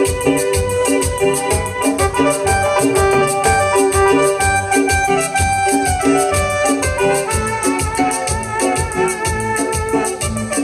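Live dance band playing a chilena, an organ-like keyboard carrying the melody over a steady bass-and-drum beat.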